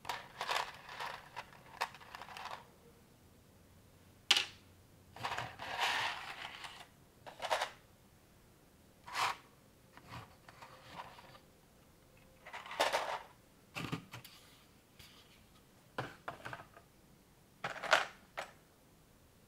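Plastic building bricks and Technic parts of a LEGO-style clone set being handled and pressed together: intermittent clicks and short rattles as pieces are picked out and fitted, with a few sharper snaps among them.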